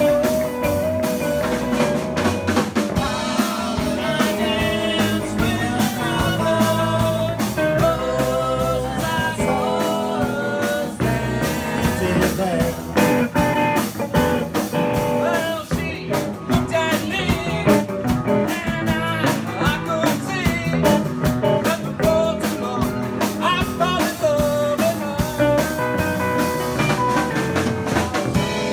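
A rock band playing a blues-rock song: a singer over electric guitars, bass and a drum kit.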